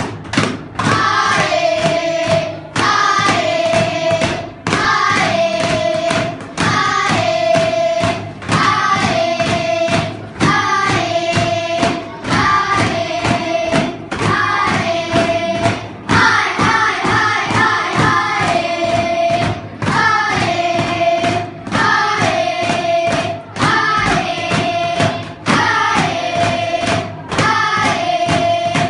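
A group of children singing together over a steady beat, repeating a short phrase about every two seconds that ends each time on a held note.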